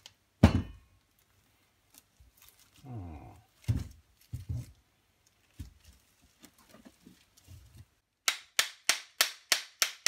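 Metal parts of a three-jaw lathe chuck handled and knocked a few times, then, from about eight seconds in, a fast, even run of sharp hammer taps, about three a second, as the chuck is tapped to free its parts.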